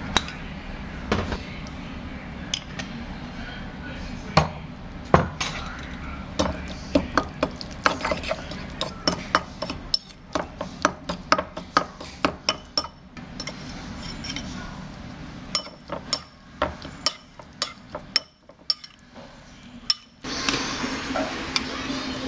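A spoon clinking and scraping against a ceramic bowl in quick, uneven strokes as a wet mix of grated ginger and chopped spring onion is stirred together.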